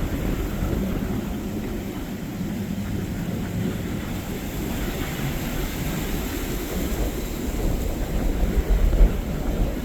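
Steady low drone of a Cutwater cabin boat's engine running out through the inlet, with wind buffeting the microphone, heaviest near the end.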